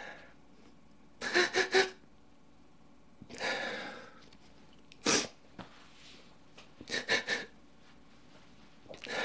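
A man crying: bursts of short sobbing gasps and sniffs, about four in all, with pauses between them.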